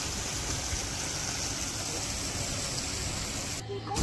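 Steady rush of running water at an outdoor swimming pool. It cuts off suddenly shortly before the end.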